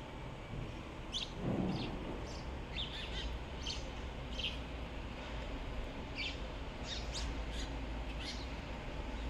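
Sparrows locked in a fight, giving short, sharp chirps, about a dozen scattered through, over a steady low rumble. A brief low rush about a second and a half in is the loudest moment.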